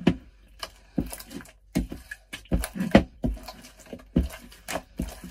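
White glue and borax slime being kneaded and squeezed by hand in a wet glass bowl as it is worked back into activator, giving irregular wet squelches with sharp clicks and pops several times a second.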